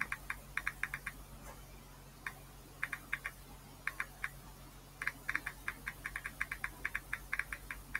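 Typing on a computer keyboard: runs of quick keystrokes with short pauses between them, over a faint steady low hum.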